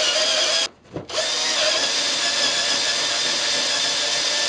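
Cordless drill with a large bit boring a hole through plywood: a steady motor whine that stops briefly about a second in and then runs on.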